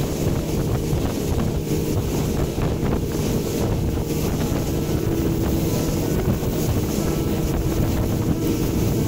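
A boat engine running steadily while the boat moves over the river, with water rushing past and wind buffeting the microphone.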